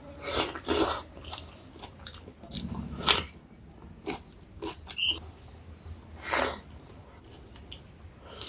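Close-up eating sounds: a handful of separate bites and chewing smacks of a meal of rice and curry, spaced a second or more apart, over a faint low hum.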